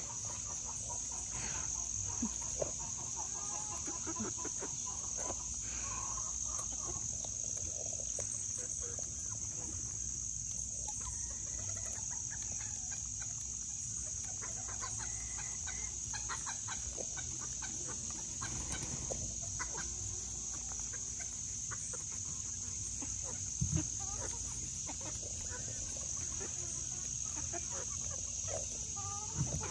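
A small flock of hens clucking softly and intermittently while foraging, over a steady high-pitched insect drone. Two brief thumps, one about two-thirds of the way through and one near the end.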